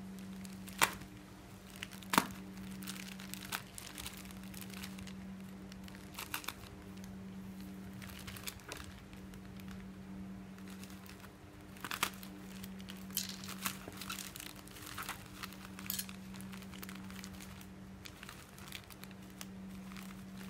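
Plastic courier mailer bag being cut open with a knife and handled: crinkling and crackling plastic with scattered sharp snaps, the loudest about a second and two seconds in, over a steady low hum.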